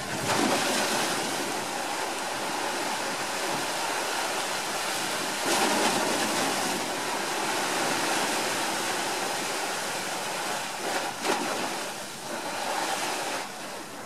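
Sea waves washing in: a steady rush of water noise that swells louder about half a second in and again around six seconds in, with a few short louder bursts about eleven seconds in.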